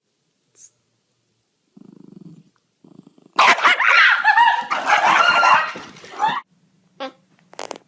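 A dog giving a loud run of wavering, pitch-bending calls for about three seconds, starting a little past the middle. A short low buzz comes before it, and two brief sharp sounds follow near the end.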